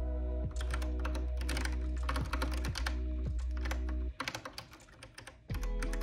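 Typing on a Kinesis Advantage 360 Pro split, contoured keyboard: quick runs of key clicks over background music with a steady bass. The music drops out for about a second and a half near the end, leaving a few scattered keystrokes.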